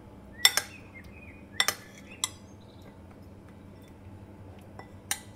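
Metal spoon clinking against a ceramic bowl while stirring marinated paneer cubes: a few sharp clinks, some in quick pairs, mostly in the first two and a half seconds and once more near the end.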